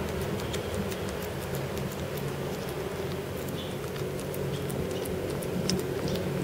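Kittens chewing and licking rice with sardine, a scatter of small irregular clicks and smacks, over a steady low hum.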